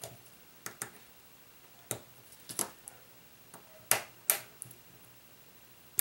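Small, sharp clicks and taps, about ten of them spread irregularly, the loudest around four seconds in, as fingers work at a flex-cable connector inside an opened Nexus 4 phone to unclip it from the board.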